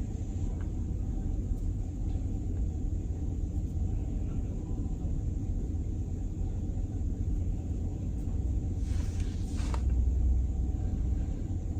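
Steady low rumble that swells slightly about nine seconds in, with a brief hiss at that point.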